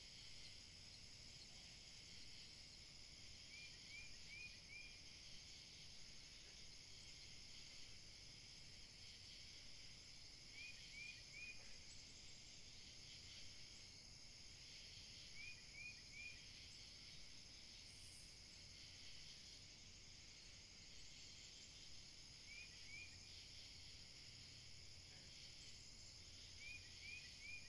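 Faint night ambience: a steady high insect drone, with a quick run of three or four chirps every five to seven seconds.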